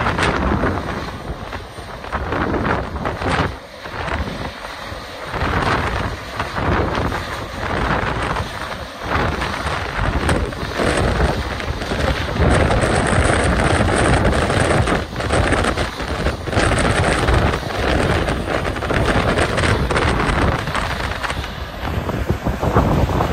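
Strong gusty wind buffeting the microphone: a heavy, uneven low rumble that swells and drops in surges.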